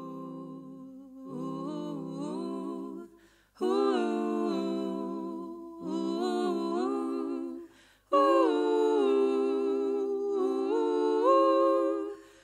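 A cappella background song: hummed vocals without words, sung in phrases of a few seconds with brief breaks between them, getting louder as it goes.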